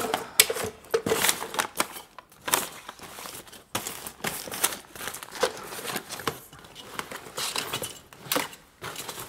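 Hands rummaging through a pile of clutter: clothes, tangled cables and bags rustling and crinkling, with irregular short knocks as objects are shoved aside.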